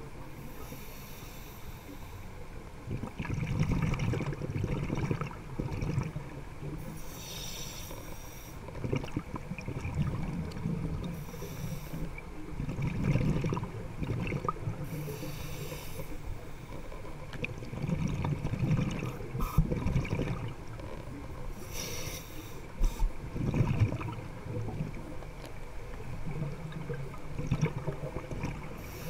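A scuba diver breathing through a regulator, heard underwater: a short hiss on each inhale, about every four seconds, alternating with a low bubbling rumble on each exhale.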